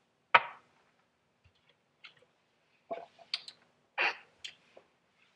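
Kitchen handling sounds: a few sharp clicks and knocks of utensils and containers being moved. The loudest comes about a third of a second in, then a cluster of clicks follows around three to four and a half seconds in.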